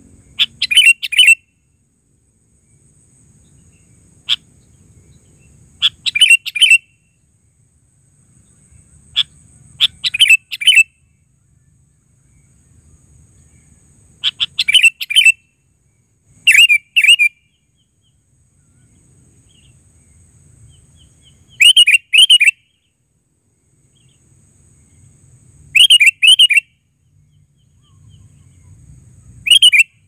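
Sooty-headed bulbul (kutilang) calling: short phrases of a few quick notes rising and falling in pitch, repeated about every four seconds, eight or nine times.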